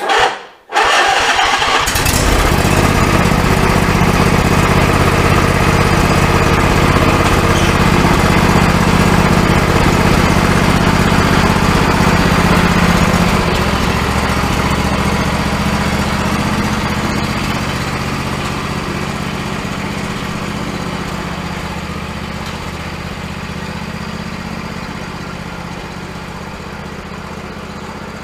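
John Deere 125 riding lawn mower engine starting, catching within about two seconds and then running steadily. About thirteen seconds in it drops in level and keeps fading slowly.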